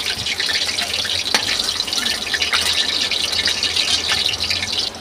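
Hot oil sizzling and crackling in a pan as fried potatoes are scooped out with a ladle, with a single knock about a second and a half in. The sizzle cuts off suddenly near the end.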